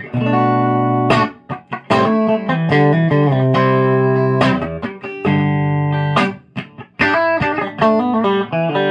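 Electric guitar with a P90 bridge pickup (a Reverend Club King 290) played clean through a Ceriatone tube amp, boost pedal off and amp at half power. Picked chords and single notes, with a couple of brief stops between phrases.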